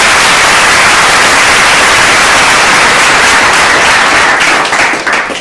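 Loud, steady rush of hissing noise, even across high and low pitches. Near the end it thins into scattered crackles and fades out.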